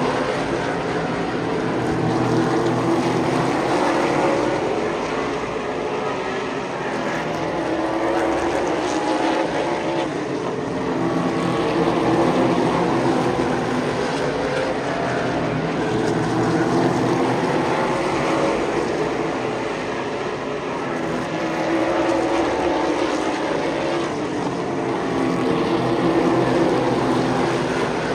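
Super late model stock cars' V8 engines racing on a short oval track. Their pitch rises and falls in repeating waves as the cars accelerate down the straights and lift for the turns, getting louder and softer as they pass.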